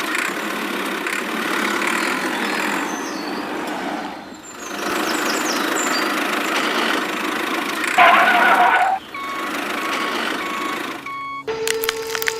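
Vehicle engine running steadily, with a louder burst about eight seconds in followed by a string of short beeps. Near the end it gives way to a steady tone with rapid clicking.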